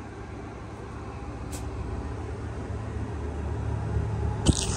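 Low, steady engine- or machinery-like rumble in the background, slowly getting louder, with a single sharp knock near the end.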